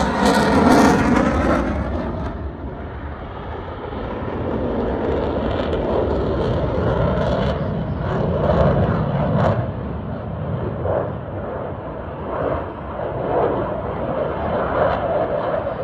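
Fighter jet passing low overhead, its engine noise falling in pitch as it goes by over the first two seconds. After an abrupt change about two and a half seconds in, a steadier, duller jet rumble from aircraft further off, swelling and fading.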